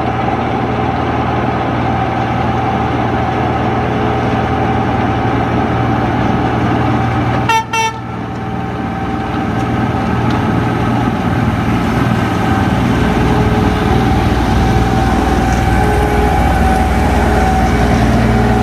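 Train running steadily, a heavy low hum with a few steady tones over it, and a short horn toot in two quick pulses about seven and a half seconds in.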